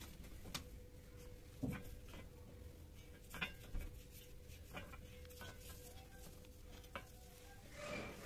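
Faint scattered clicks and taps over a thin steady hum, with a short burst of handling noise near the end as a hand picks up a small plastic pipe cap.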